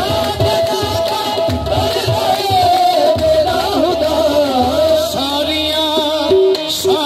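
Devotional folk music: a gliding, ornamented melody, most likely sung, over drum beats, with short repeated notes entering near the end.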